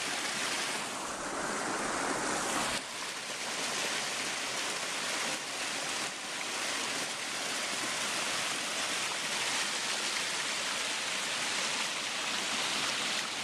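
Creek waterfall rushing steadily.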